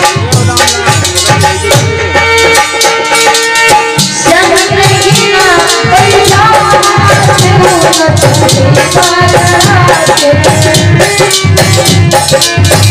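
Live Indian folk devotional song: a woman singing a bending melody over a dholak hand drum and jingling hand percussion, with a steady held note under the first few seconds.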